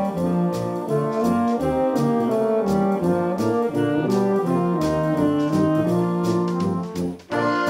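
Fanfare band of brass and saxophones playing a swinging arrangement, with low bass notes on each beat and regular cymbal and drum strokes. About seven seconds in the band breaks off for a moment, then comes back in together.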